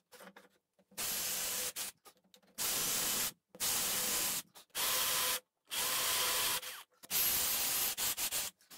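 Cordless drill boring recesses into wood with an 8 mm bit, run in about six short bursts of a second or so, starting and stopping between holes.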